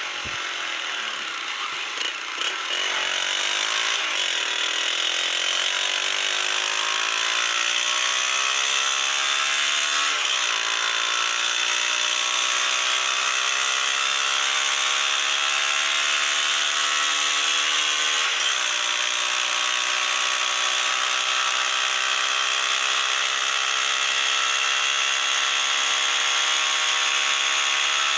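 Modified single-cylinder motorcycle engine and exhaust running under load, its pitch climbing steadily as it gains speed and dipping briefly three times, consistent with gear changes, over a strong hissing rasp.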